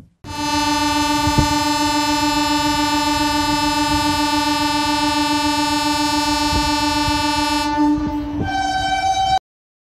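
Train horn sounding one long, steady blast for about eight seconds. It switches to a different, higher note shortly before it stops.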